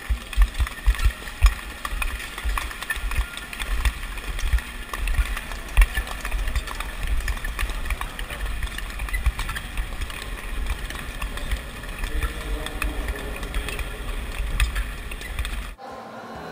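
Speed-skate blades scraping and clap skates clicking on the ice in a pack of skaters, with heavy wind buffeting on the microphone. The sound cuts off suddenly near the end.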